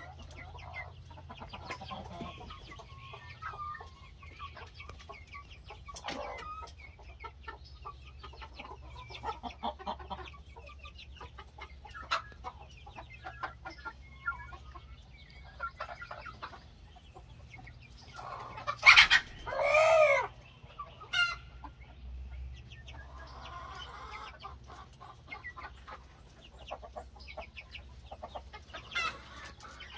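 A flock of adult chickens and half-grown chicks clucking in many short calls, with one much louder call about two-thirds through.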